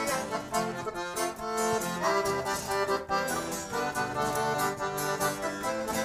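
Piano accordion playing a lively instrumental melody in a sertanejo song, over strummed acoustic guitar accompaniment, with no singing.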